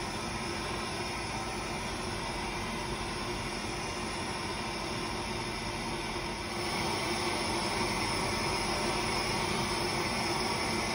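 Handheld propane torch on a disposable propane cylinder, its flame hissing steadily as it heats aluminum for brazing; the hiss grows a little louder about six and a half seconds in.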